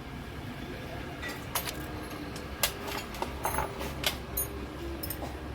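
Metal tools and small engine parts clinking and clicking as they are handled during engine repair work: a scatter of sharp clinks, closest together in the middle seconds, over a steady low hum.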